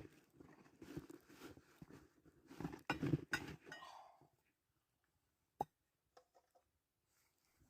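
Irregular close-up crunching and handling noises for about four seconds, then quiet with one sharp click and a few faint ticks.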